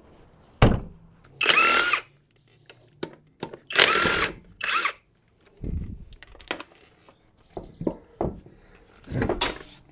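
Cordless impact wrench run in several short bursts, loosening the lug nuts on an SUV's rear wheel, with a few dull thumps in between.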